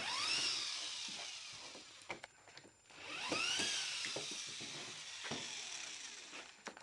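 Small electric router motor switched on twice in short bursts. Each time the whine rises quickly in pitch, then sinks slowly as the motor winds down, with a few clicks between.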